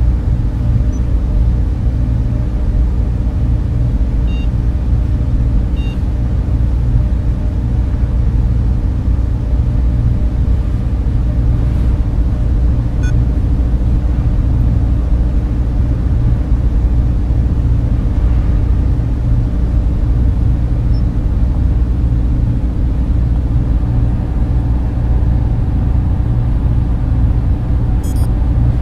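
Steady deep machinery hum and rumble of a sci-fi spaceship interior ambience, like ventilation fans and motors running, with a few faint short electronic beeps.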